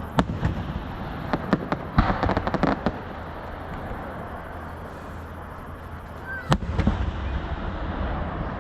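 Fireworks going off: a few sharp bangs, then a rapid crackle about two seconds in, and a louder boom with a low rumble about two-thirds of the way through.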